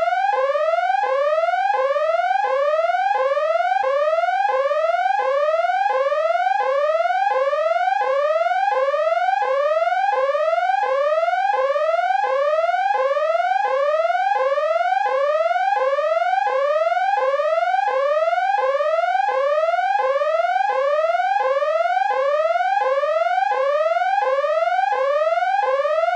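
Electronic danger alarm: a steady, loud whooping tone that repeatedly sweeps upward and snaps back down, about one and a half rising sweeps a second.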